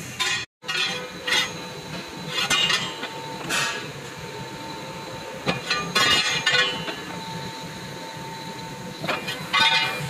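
Sheet steel clanking and scraping as it is fed through the rollers of a three-roll plate bending machine. The clatter comes in irregular bursts, several in a row, over a faint steady hum.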